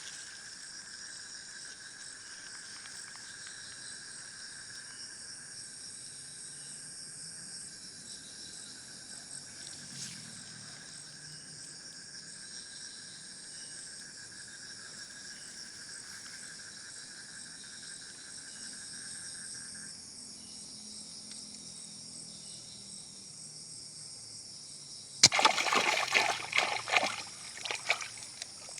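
Night chorus of insects with a steady, high-pitched trill that stops about two-thirds of the way through. Near the end, loud, irregular splashing in water.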